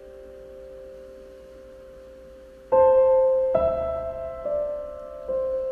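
Background piano music: a soft chord fading low, then single notes struck one after another from about halfway through, each ringing on and fading.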